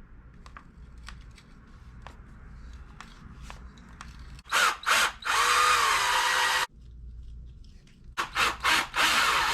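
Power drill run in short bursts: two quick blips and then a steady run of about a second and a half around the middle, and several quick trigger blips followed by another run near the end. Light handling clicks come before the first run.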